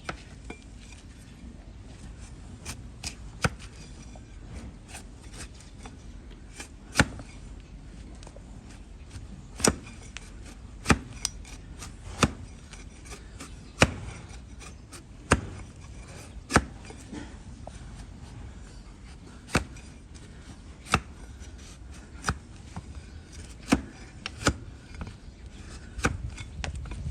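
A trimming blade cutting into a donkey's hoof horn: sharp, separate cutting strokes, one every second or two, irregularly spaced.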